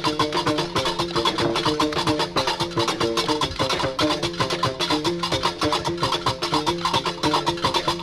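Moroccan Rif folk music from a late-1960s field recording: rapid, dense hand percussion driving under a melody of short stepped notes, over a steady low drone.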